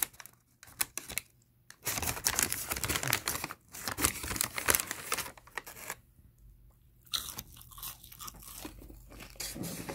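Crackly crunching and paper rustling from boneless fried chicken and fries in a paper bag: a hand rummages in the bag and crunchy fried food is chewed, in two long stretches with a short quiet break about two-thirds of the way through.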